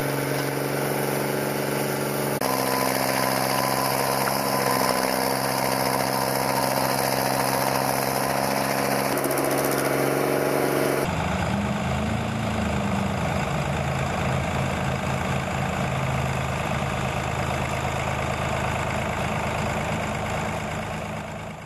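Remote-controlled stump grinder's engine running steadily. Its tone changes abruptly about two seconds in and again about eleven seconds in, and it fades out near the end.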